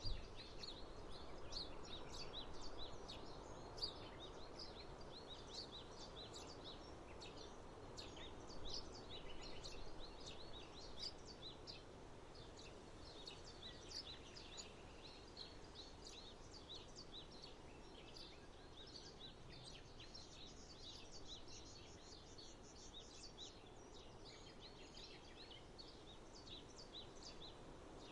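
Many small birds chirping and twittering in quick, overlapping calls, over a faint steady low background rumble.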